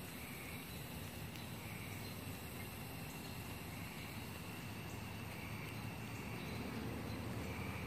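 Evening insect chorus of crickets: a steady high-pitched trilling, with a short note repeating about once a second and a low rumble underneath.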